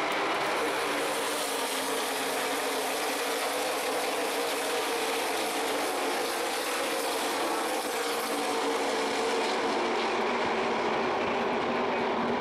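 Field of NASCAR Nationwide Series stock cars' V8 engines running together at pace-lap speed: a steady, dense drone.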